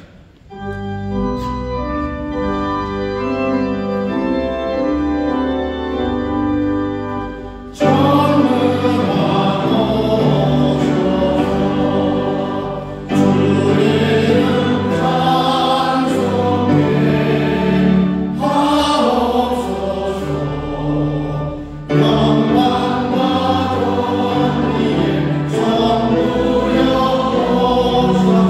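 Church hymn: sustained organ-like keyboard chords play an introduction, then about eight seconds in, many voices join, singing together in long phrases over the accompaniment.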